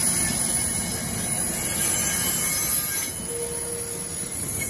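NJ Transit passenger coaches rolling past on curved track, their wheels squealing against the rail with a steady high squeal over the rumble; the sound eases about three seconds in as the train moves off.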